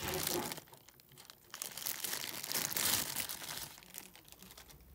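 Thin clear plastic bag crinkling and rustling in two spells as a small toy figure is pulled out of it, the longer spell in the middle, dying away near the end.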